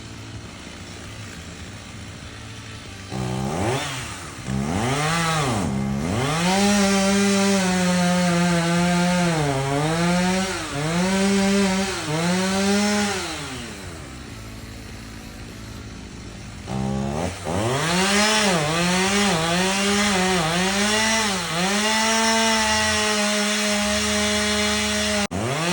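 Chainsaw running at high revs and cutting into a hard maple trunk, its pitch sagging under load and recovering again and again. It drops back to a low idle about eleven seconds in, then revs up into the cut again a few seconds later.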